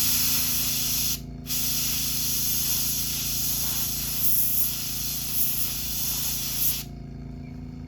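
Airbrush spraying paint with a loud hiss in two bursts: a short one, a brief break, then a long one of about five seconds that stops near the end. A steady hum from the airbrush's air compressor runs beneath and continues after the spraying stops.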